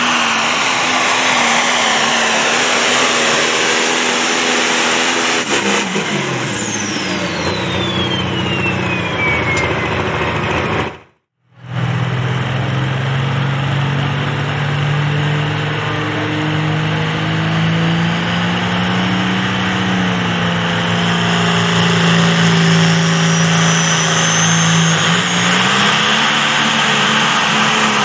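Turbocharged diesel pulling tractor engines running hard. The first tractor's engine drops in speed about six seconds in, a high turbo whistle falling away with it as its pull ends. After a brief cut, a second tractor's engine holds steady revs at the start, then revs up near the end with the turbo whistle rising as it launches down the track.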